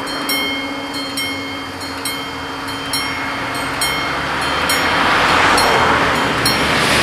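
Level-crossing warning bells ringing in evenly repeated strokes, a little over one a second, signalling that the crossing is closing as the barriers lower. A broad rushing noise swells up in the second half.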